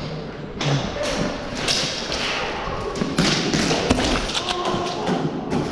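A run of thumps and taps among surges of rustling noise.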